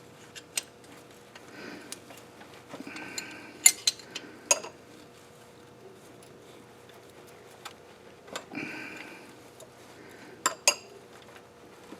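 Scattered sharp metallic clicks and clinks of hand tools being handled while a torque wrench is set, the loudest few about four seconds in and again near the end.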